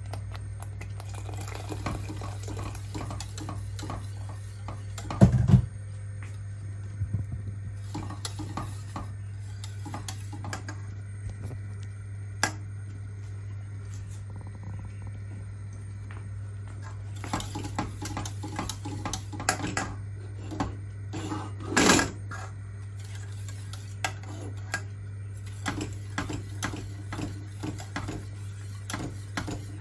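Wire whisk scraping and clicking against the sides of a stainless steel pot while stirring maize flour porridge, with a couple of louder knocks about 5 and 22 seconds in, over a steady low hum.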